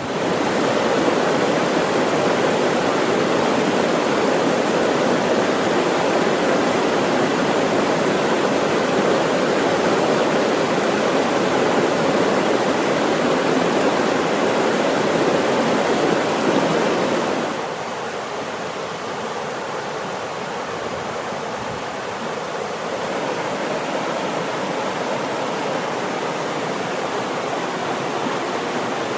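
Mountain stream rushing over rocks, a steady full rush of water. About two-thirds of the way through it changes abruptly to a quieter, lighter rush, with less of the deep churn.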